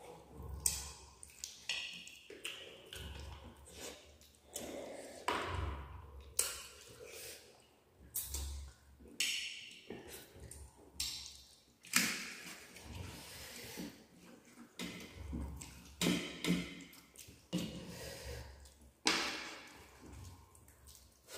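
Close-up eating sounds of rice with fish curry being eaten by hand: wet squishing as fingers mix rice on steel plates, chewing and lip smacking. Scattered light clicks and taps against the metal plates, with a few dull thumps.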